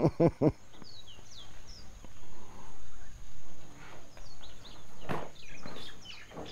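Small birds chirping over and over, each note a short falling chirp.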